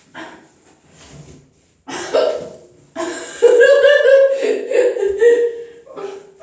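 Someone with the hiccups laughing: a few short breathy sounds, a loud laugh about two seconds in, then a long high-pitched laugh lasting about three seconds.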